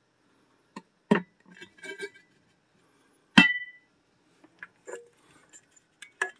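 Knocks and clinks from handling a glass lampshade on a wooden base. The loudest is one sharp clink about three and a half seconds in that rings briefly.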